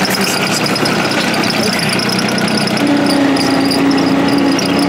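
An engine running steadily, with a second steady hum joining about three seconds in and a fast, high ticking over it.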